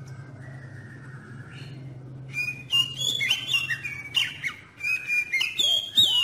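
Oriental magpie-robin (kacer) singing: about two seconds in it breaks into a loud, varied run of quick whistled glides mixed with harsh notes, which keeps going. Before that only a faint low hum is heard.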